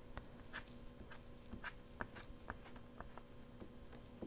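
Faint handling of paper pieces on a craft table: scattered light taps and rustles, over a steady low hum.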